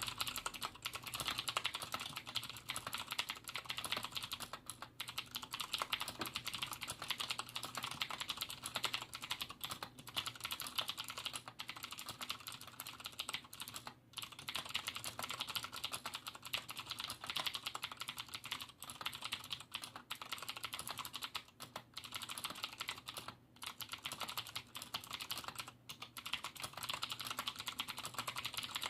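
Fast, continuous typing on a Cooler Master QuickFire XTi mechanical keyboard with clicky Cherry MX Blue switches, in stock, untuned form. The keystrokes run as a dense stream of clicks, with a couple of brief pauses.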